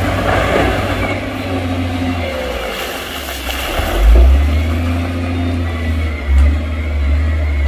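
Heavy diesel engines of a wheel loader and dump trucks running steadily, growing louder about four seconds in.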